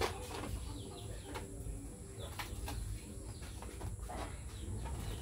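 Birds chirping with short falling calls, mixed with sharp clicks and rustles of latex balloons being handled and pressed into a balloon column.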